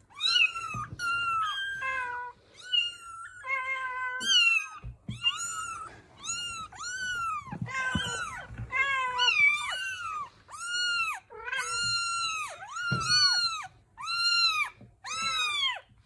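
Newborn kittens mewing: a quick run of high-pitched calls, each rising and then falling in pitch, with two kittens sometimes calling at once.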